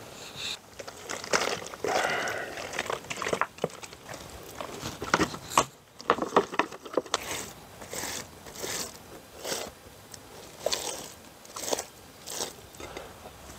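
Gloved hands scraping, crumbling and patting damp soil and mud, with a flat stone shifted on the dirt: irregular crunching scrapes, some sharp.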